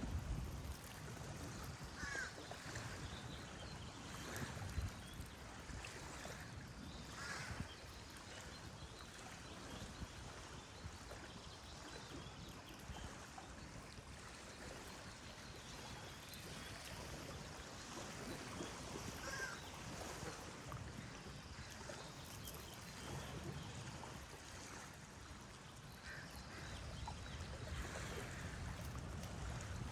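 Geese honking now and then, a handful of short calls spread through, over steady flowing water.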